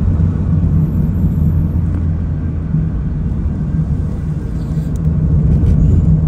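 Steady low engine hum, a constant drone with no changes in pitch.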